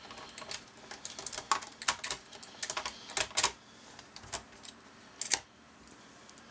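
Irregular small clicks and taps of a 7/32-inch nut driver turning out the screws that hold the odometer in a digital instrument cluster, with the screws and tool knocking lightly against the board and housing. One click a little past five seconds in is louder than the rest.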